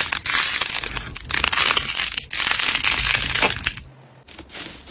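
Crunchy slime squeezed between the fingers, a loud dense crackling that stops briefly near the end, when a foil-covered 'iceberg' slime starts to give quieter crinkling clicks.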